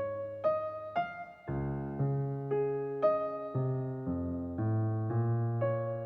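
Calm, slow piano music: soft notes and chords struck about twice a second, each left to ring into the next.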